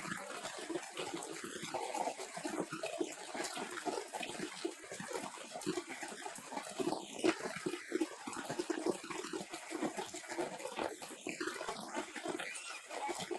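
Steady rain falling, with a young animal crying over it.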